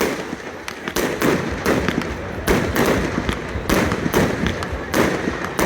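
Display fireworks going off in a rapid, steady string, about two sharp bangs a second, with their noise overlapping between the reports.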